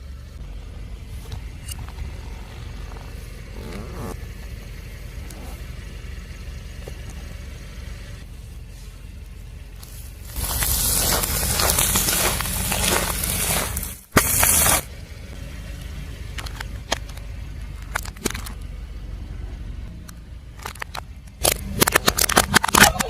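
A car's tyre rolling over objects and crushing them, scraping and crackling over a steady low rumble from the car. About ten seconds in comes a louder stretch of crushing noise that cuts off suddenly, and near the end a quick run of sharp cracks and snaps.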